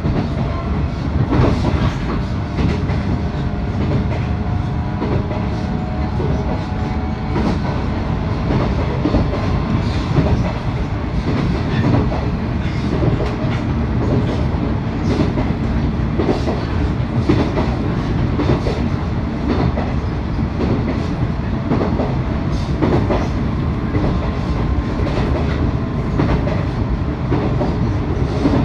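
A 719 series electric multiple unit running at speed: a steady rumble of wheels on rail, broken by wheels clicking over rail joints every second or two.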